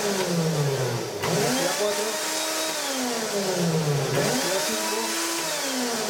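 Repaired household blender's motor base, run without its jar, spinning up quickly, holding briefly and coasting down, twice over: its brushed motor switched on in short bursts from the push buttons, whose cleaned contacts now start it reliably. A click of a button comes about a second in, just as the motor starts up again.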